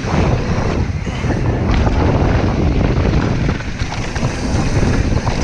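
Wind buffeting the camera microphone of a mountain bike riding fast downhill, over a steady low rumble of tyres rolling on a gravel dirt trail, with a few short clicks and knocks from the bike.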